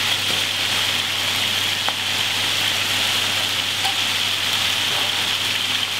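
Chicken pieces and spices sizzling steadily as they sear in hot ghee in the pan of a FRIMA VarioCookingCenter.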